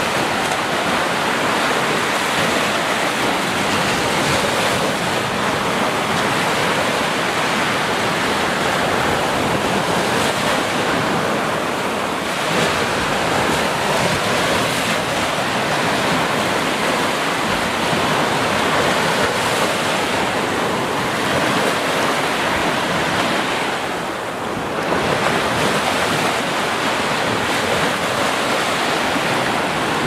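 Small waves breaking and washing up a sandy beach: a steady rush of surf that swells and eases slightly, with a brief lull about four-fifths of the way through.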